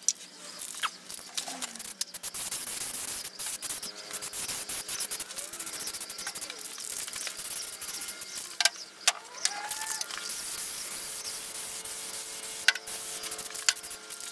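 Aerosol spray can of primer hissing in steady passes as it coats a cast-iron lathe bed, with a few sharp clicks in the second half.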